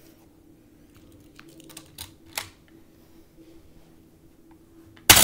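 A few light clicks, then about five seconds in a sudden loud clatter as a die-cast Hot Wheels car crashes onto plastic track after failing to make it across the loop.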